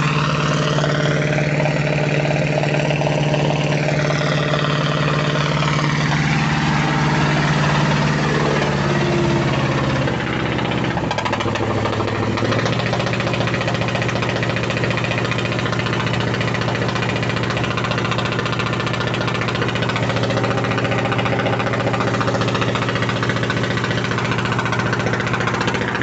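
Mitsubishi 8DC V8 diesel in a 15-ton boat running steadily; about ten seconds in the revs drop and it settles into a lower, steady running speed.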